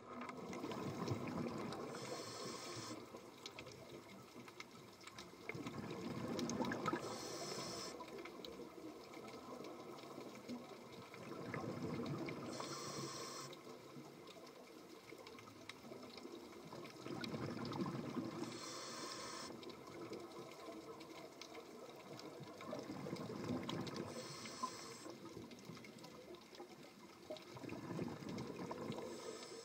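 Scuba regulator breathing underwater, in a slow regular cycle about every five and a half seconds: a high hiss of air through the regulator and a rush of exhaled bubbles on each breath.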